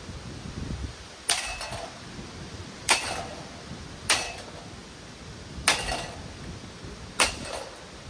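Five heavy blows struck on an old ceiling fan's metal body, spaced a second or so apart, each ringing briefly.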